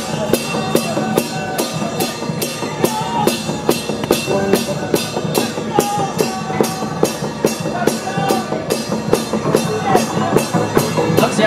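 Procession band music: a steady beat of drum and cymbal hits, about three a second, under a wandering melody.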